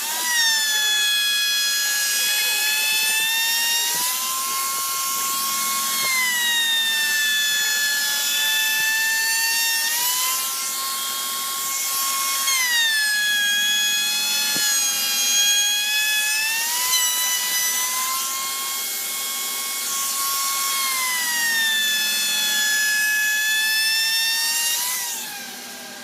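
High-speed power tool motor whining as it cuts wood. Its pitch sags and recovers every few seconds as the load on the bit changes.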